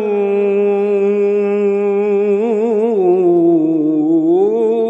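A man sings an Islamic ibtihal solo, holding one long note on a single vowel. About halfway through it breaks into rapid melismatic wavering, sinks lower, and climbs back up near the end.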